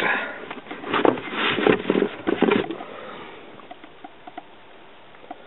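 Rustling and scraping of a cardboard box and its packaging as a touch-screen car stereo is lifted out, a run of noisy handling bursts that dies down after about two and a half seconds into a few faint taps.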